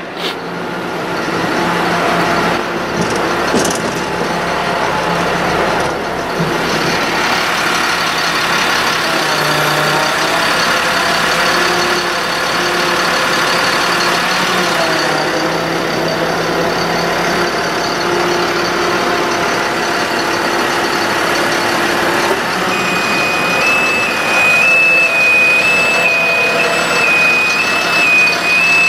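Ford F-750 truck engine running steadily, driving the PTO hydraulic pump while the Lift-All boom and outriggers are worked, with shifting whines from the hydraulics. Late on, an electronic alarm starts sounding a steady alternating two-tone beep.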